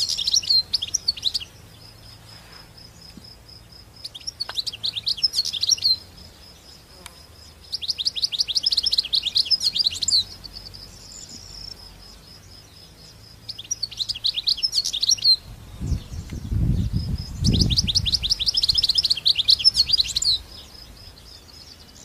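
European goldfinch singing: five phrases of fast, twittering high notes, each a second or two long, with short pauses between them. A faint steady high whine runs under the pauses, and a brief low rumble comes about three-quarters of the way through.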